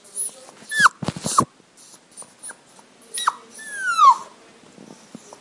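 Young puppies whimpering: about four short, high-pitched squeals that slide down in pitch, the longest near the four-second mark. A quick run of knocks comes about a second in.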